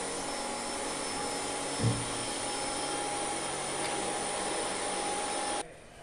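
A motor runs steadily, a broad drone with a thin whine over it. A single dull thud comes about two seconds in, and the drone cuts off abruptly near the end.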